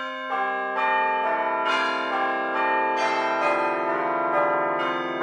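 Bell chimes struck one after another, a new note about every half second, each ringing on under the next.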